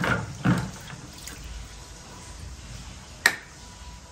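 Dirty water trickling and dripping out of the opened drain-pump filter of a front-loading washing machine into a container, with one sharp click about three seconds in.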